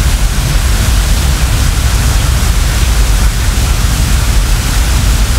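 Brown floodwater torrent rushing, a loud steady noise with a heavy low rumble.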